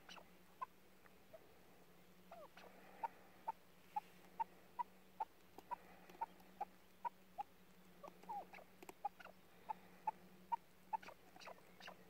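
Chukar partridge calling: a long run of short, sharp notes, about two to three a second, with a few brief sliding notes mixed in.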